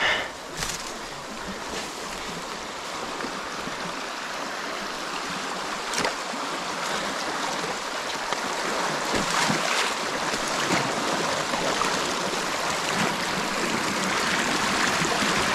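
Creek water rushing and crashing, a steady rush that grows gradually louder, with a few brief knocks.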